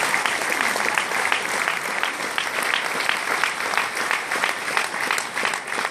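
Large hall audience applauding loudly after a speech, a dense mass of claps.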